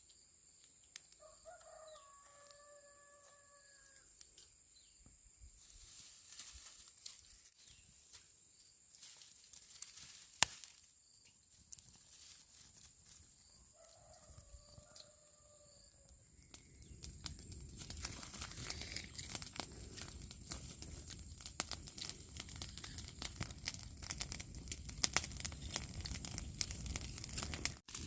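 A rooster crows twice, about a second in and again about 14 s in, each crow a couple of seconds long. From about 17 s on, a steady rustling and crackling with many small clicks takes over.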